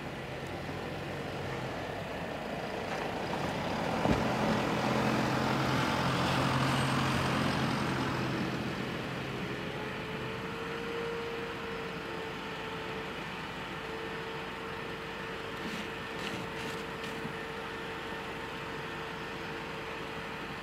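Sasara snow-sweeper streetcar (Sapporo's Yuki 23) moving slowly over packed snow, its wheels crushing snow on the track and slipping: a steady low hum swells into a louder grinding rush with a sharp crack about four seconds in, then gives way to a steady whine from about halfway, with a few faint clicks near the end.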